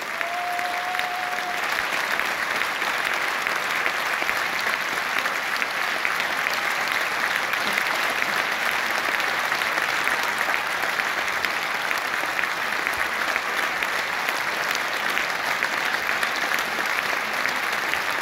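Large theatre audience applauding, a dense, even clapping that holds steady throughout.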